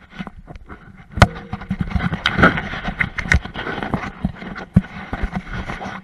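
Clattering knocks, clicks and scrapes of things striking the small jonboat, a sharp knock about a second in and a dense run of clatter after it.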